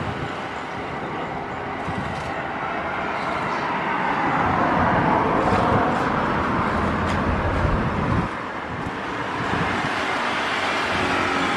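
Lockheed C-130H Hercules's four Allison T56 turboprop engines droning as it flies low on landing approach, swelling louder, then dropping abruptly about eight seconds in.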